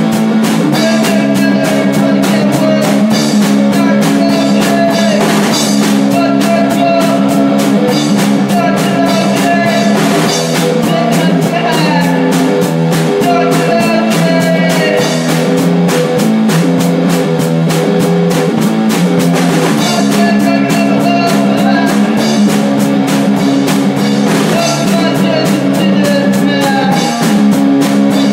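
Hardcore punk band playing: distorted electric guitar chords over fast drumming, with almost no bass in the mix.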